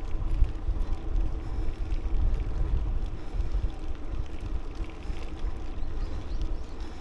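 Wind buffeting the microphone while riding a bicycle: a low, unsteady rumble that swells and dips, with a fainter steady hum from the moving bike beneath.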